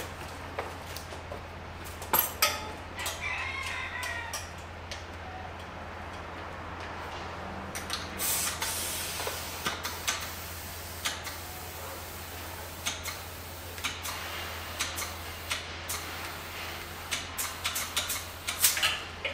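A rooster crows about three seconds in. From about eight seconds, air hisses at a BMX tire's valve stem as it is inflated from an air compressor hose, with scattered clicks and knocks of the chuck and wheel being handled.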